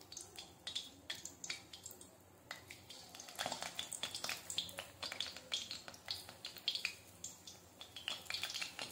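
Pakoda batter frying in hot oil in an iron kadhai, crackling and spitting. The crackles are sparse at first and grow louder and denser about three and a half seconds in, as more batter goes into the oil.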